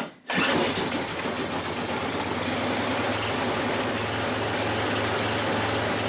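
Ariens two-stage snowblower's single-cylinder four-stroke engine, cold-started on full choke and primed, catching almost at once and then running steadily near full throttle.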